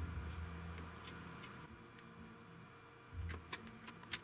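Faint small clicks of multimeter test probes touching and tapping on a circuit board, with a sharper click near the end and a brief low hum twice.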